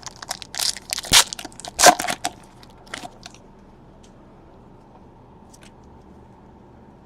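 Crinkling and crackling of a trading-card pack's foil wrapper and the cards inside being handled, a quick run of sharp crackles for about three seconds that then stops.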